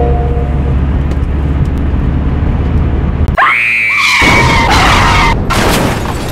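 Car running with a steady low engine drone. About three and a half seconds in, the tyres screech in a long skid as the car brakes hard. A burst of noise follows near the end, the start of a crash.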